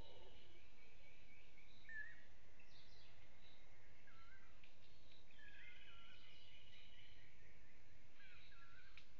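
Forest birds calling: short whistled notes every second or two, with a longer high buzzy trill, over a steady background hiss.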